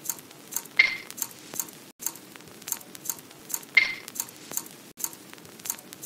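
Sparse music beat: evenly spaced hi-hat ticks, two or three a second, with a heavier clap-like hit about a second in and again near four seconds.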